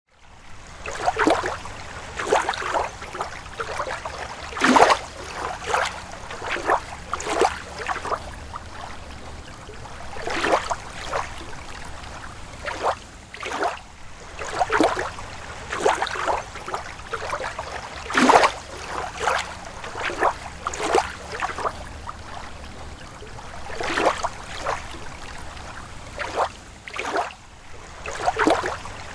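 Small lake waves lapping, with irregular little splashes every second or so over a steady low wash of water.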